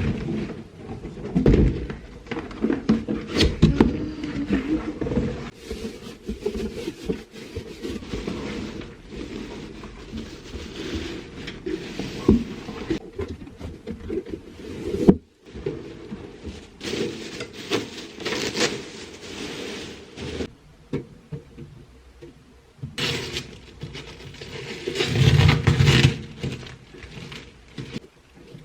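Handling noise from unpacking a microwave oven: irregular thunks, knocks and scraping of cardboard and packing material, with a louder burst of handling about 25 seconds in.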